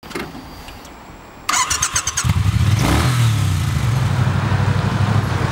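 Motorcycle engine starting: a short burst of starter cranking about a second and a half in, the engine catches, gets a quick blip of throttle and settles into a steady idle.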